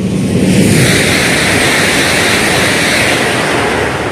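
Jakarta–Bandung high-speed train, a CRRC electric multiple unit, passing at speed. A loud rushing noise of air and wheels swells within the first second, holds, then begins to fade near the end as the train draws away.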